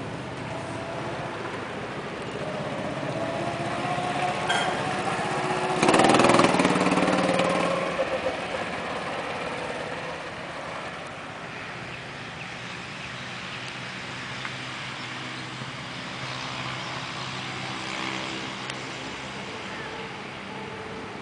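Go-kart engines running as karts lap the track. One kart's engine rises in pitch and is loudest as it passes about six seconds in, then fades away, and another kart's engine swells and fades near the end.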